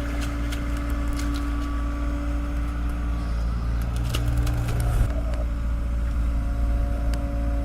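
Heavy diesel machinery engine running steadily with a low rumble and a few light clanks; its note changes about five seconds in.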